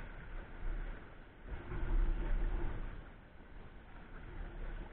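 Wind buffeting the microphone over the wash of sea surf on the rocks: a low, noisy rumble that swells for a second or so about a second and a half in, then eases.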